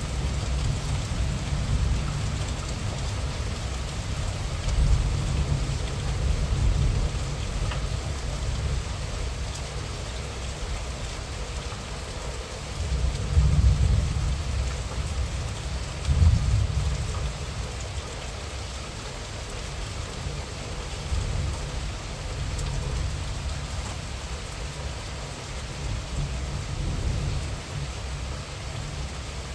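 Moderate rain falling steadily, heard as an even hiss. Underneath runs a low, uneven rumble that swells briefly twice about halfway through.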